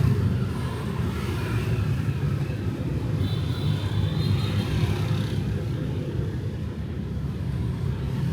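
Urban street traffic at night, mostly motorbikes and cars: a steady low rumble of engines and tyres, with a faint high whine from about three to five seconds in.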